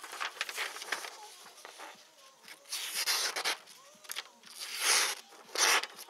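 Victorinox Hunter XS locking blade slicing through a sheet of paper in several strokes, each a short papery swish. The loudest strokes come about three, five and nearly six seconds in. It is a paper test of the edge after long cardboard cutting, and the blade snags in places.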